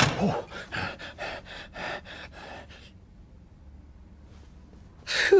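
Quick, rapid panting breaths, about three or four a second, fading out after about three seconds; then one sharp, loud gasp near the end.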